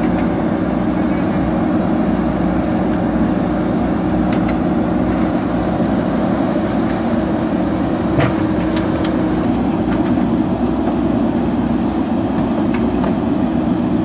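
Diesel engines of several JCB backhoe loaders running steadily under load while digging, with a few sharp knocks, the loudest about eight seconds in.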